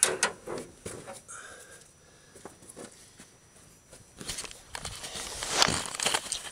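A sharp knock and a few light handling clicks, then from about four seconds in loud rustling and scuffing, like steps in dry leaves.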